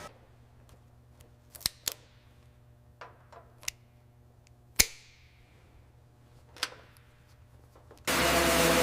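About six sharp separate clicks and knocks, the loudest about five seconds in. Near the end a loud steady hiss with music cuts in suddenly.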